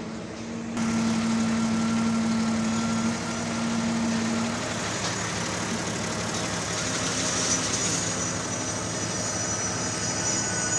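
Heavy construction machinery engine running steadily, with a low hum that gets louder about a second in.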